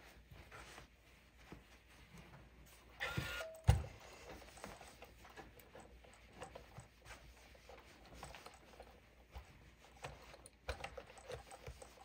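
Quiet handling sounds: soft rustles and light taps. About three seconds in comes a short hiss with a brief squeak, then one sharp thump.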